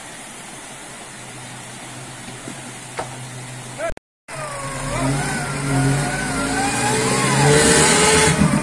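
Off-road SUV's engine running steadily, then after a brief break revving up and down repeatedly under load as the vehicle works its way out of a ditch, growing louder, with a rush of hiss near the end.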